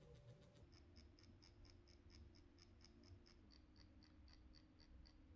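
Permanent makeup machine running faintly with a steady low hum, with a soft regular ticking of about three to four a second as the needle is swung back and forth over the skin in pendulum strokes for powder brows.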